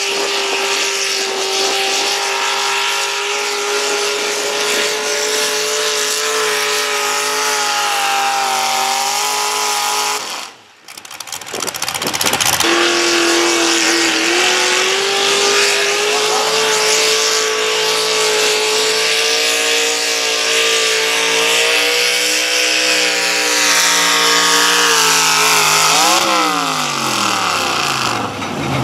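A pulling tractor's engine runs hard under load down the track. After a short break, a Chevrolet pickup pulling truck's engine runs at full throttle. Near the end its pitch falls steeply as the engine comes off the throttle at the end of the pull.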